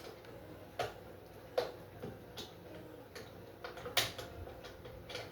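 Light, sharp clicks of small metal tools and parts, about one every 0.8 seconds, while the 3D printer is being put together by hand with its screws and hex keys.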